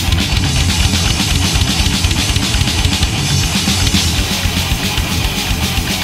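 Thrash metal recording: a drum kit playing dense, driving hits with prominent bass drum under heavy electric guitars, loud and unbroken.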